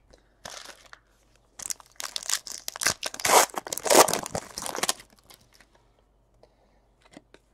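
A trading-card pack wrapper being torn open and crinkled: a run of rustling, tearing crinkles that stops about five seconds in, followed by a few faint clicks.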